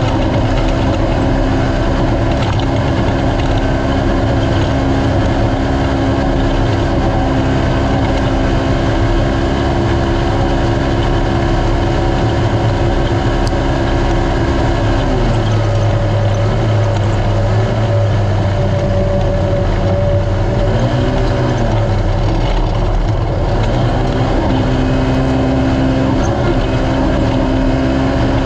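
Engine of a naturally aspirated Polaris RZR racing side-by-side running hard at a steady pitch over a constant rush of noise. About halfway through the note drops and wavers, then climbs back a few seconds before the end.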